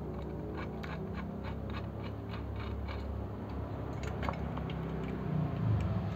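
Small clicks and scrapes of fingers handling parts inside an opened car stereo head unit's sheet-metal chassis, over a low steady hum.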